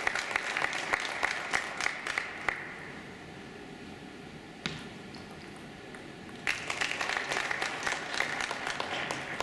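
Audience applauding in two bursts: the first fades out about two and a half seconds in, and the second starts about six and a half seconds in. Between them comes a single sharp click.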